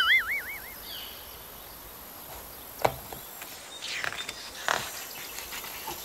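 A warbling, wobbling cartoon sound effect fades out in the first second. A click follows nearly three seconds in, and then the rustle of a picture book's paper page being turned, over a faint steady outdoor-nature ambience.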